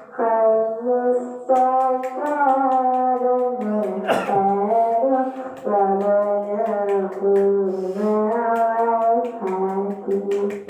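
A voice held in long, drawn-out pitched tones, phrase after phrase, each a second or two long with short breaks between.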